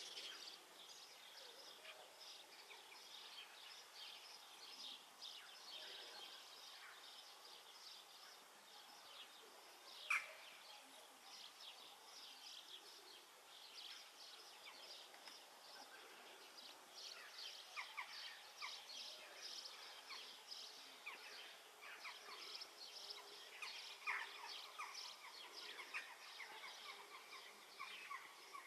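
Faint outdoor chorus of small birds chirping, many short high calls overlapping and growing busier in the second half. There is one louder, short, sharp sound about ten seconds in.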